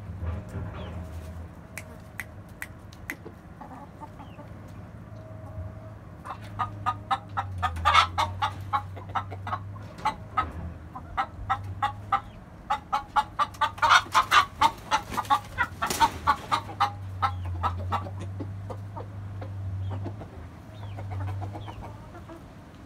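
A flock of hens and a rooster clucking and pecking at feed on the ground, a rapid run of short, sharp sounds that builds in the middle and then thins out.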